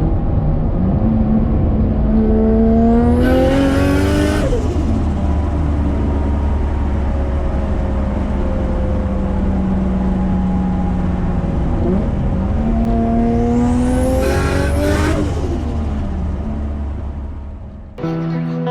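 Nissan Skyline R33's turbocharged RB25DET straight-six pulling hard on boost twice, its note rising each time and capped by a loud hissing scream from the external wastegate's screamer pipe before the revs drop back to a steady cruise. Guitar music comes in near the end.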